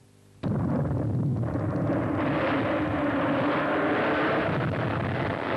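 A field of two-stroke racing sidecar outfits pulling away at the start of a race. After a brief near-silence, the engine noise comes in suddenly about half a second in and builds to a steady blend of many engines, fullest from about two seconds in.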